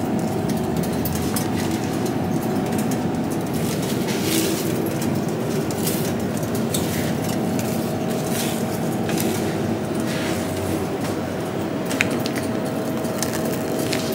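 Steady low machine hum with a faint held tone, with a few light rustles and clicks as the crepe is handled and folded.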